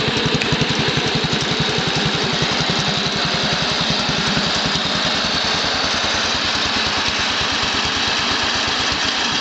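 Montgomery Ward garden tractor engine running steadily through short open upright exhaust stacks, an even beat of exhaust pulses about ten a second.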